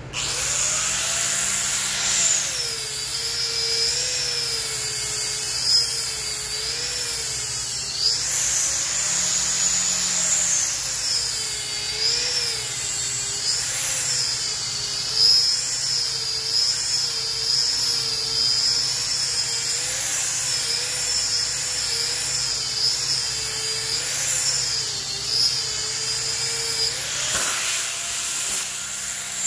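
Small handheld disc sander with a yellow sanding pad running on a pine slab, a high continuous whine that starts abruptly. Its pitch dips and wavers as it is pressed into the wood and rises briefly when the load comes off, about eight seconds in and again near the end.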